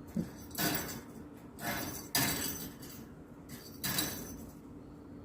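Toy balls thrown by a budgie landing and clattering, four short rattling clatters over about four seconds.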